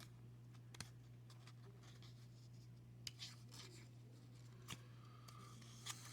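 Faint clicks and light rubbing of trading cards being handled and flipped through, over a low steady hum.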